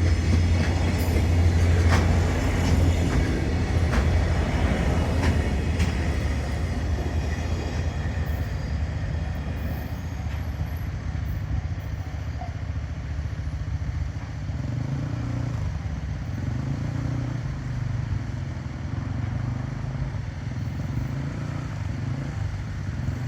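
Freight train wagons rolling past, with a few sharp knocks over rail joints in the first several seconds. A low rumble follows and slowly fades as the train moves away.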